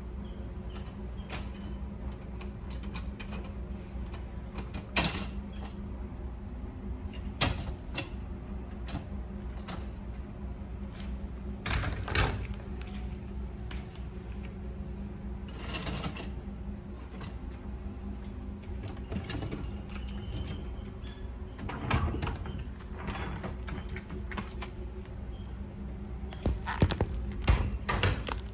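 Dishwasher parts being handled: scattered knocks and clatters, a few seconds apart, over a steady low hum.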